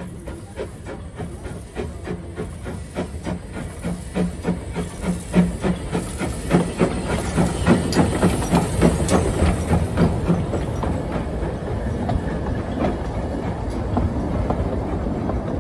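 Steam locomotive Howard working past close by: sharp exhaust beats at about three a second over a steady hiss of steam, loudest in the middle as the engine passes. Its wagons and coaches then roll by with a steadier rumble.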